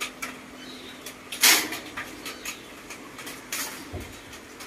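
Clatter of a clear plastic tub being handled and knocked about on a tiled floor by a pet macaque: scattered light clicks, with a louder scraping rattle about a second and a half in and a smaller one near the end.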